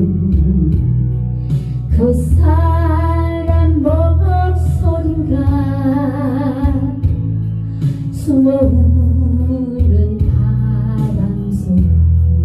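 A woman singing a slow Korean ballad with vibrato, in three drawn-out phrases, over a karaoke backing track with guitar and bass.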